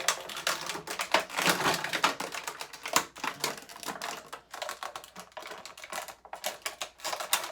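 Plastic and cardboard toy packaging being handled and pulled at, a dense irregular run of small clicks and crackles.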